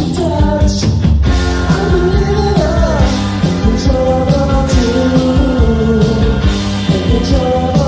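Rock song with a singing voice carrying a melody over a steady drum beat and instruments.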